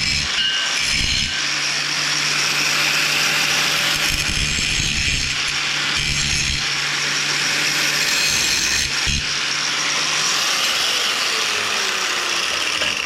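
Angle grinder running against steel, a steady harsh grinding over the hum of its motor, with brief breaks in contact. About ten seconds in the grinding stops and the grinder winds down, its pitch falling.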